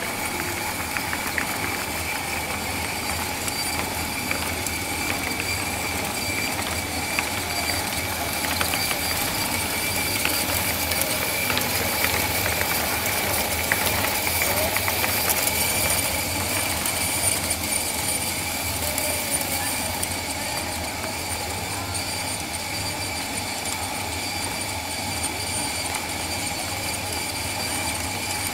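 Steady mechanical whirring and hum from the motorised drive of a kinetic rope sculpture, with several thin high whining tones and a few faint ticks; it grows a little louder in the middle.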